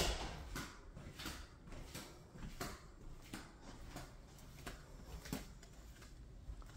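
Soft, regular footsteps, about two a second, over a faint low room hum.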